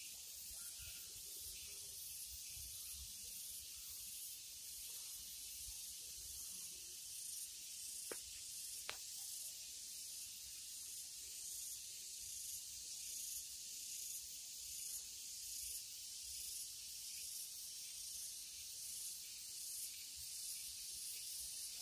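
Steady high-pitched hiss with a faint even pulse about once a second. Two short clicks come about eight and nine seconds in.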